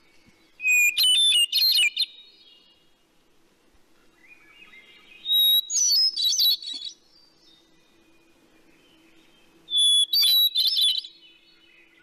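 Hermit thrush singing three separate flute-like phrases with pauses between them. Each phrase opens on a clear held note and breaks into a rising, ringing run of higher notes, and each starts on a different pitch.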